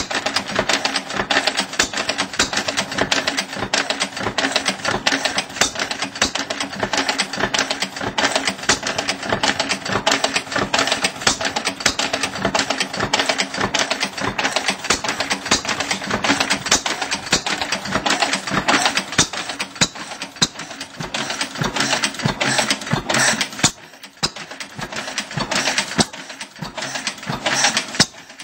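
1911 Langwill Bros 5 hp single-cylinder stationary engine running, with a fast, even mechanical clatter. It is briefly quieter twice near the end.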